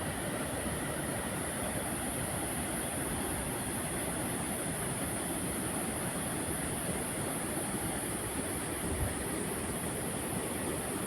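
Steady rushing of water heard from overhead: an even, unbroken rush with a low rumble beneath it and a constant high hiss, with one slight bump about nine seconds in.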